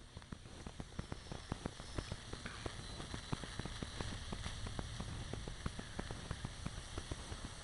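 Steady crackling with rapid, irregular clicks over a hiss from an AA battery clamped between the clips of a car battery charger, as the charger forces current through it and it heats toward bursting.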